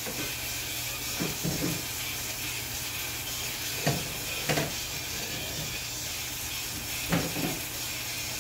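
Burger and egg frying with a steady sizzle, broken by a few short knocks about a second, four seconds and seven seconds in.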